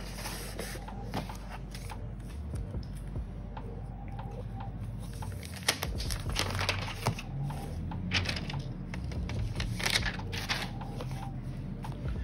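Thin clear plastic protective wrap being peeled off a new smartphone by hand: crinkling and rustling with scattered sharp crackles, the sharpest about six and ten seconds in.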